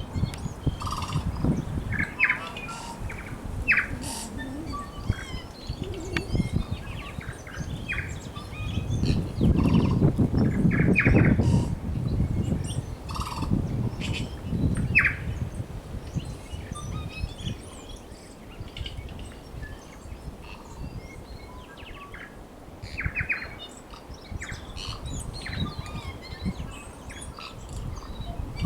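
Small birds chirping in short, scattered calls over a low rumble of wind and surf that swells for a few seconds near the middle.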